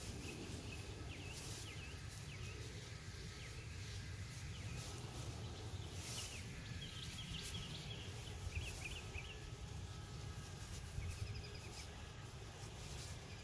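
Outdoor garden ambience: small birds chirping off and on over a steady low hum, with a few soft rustles of hands working dry soil.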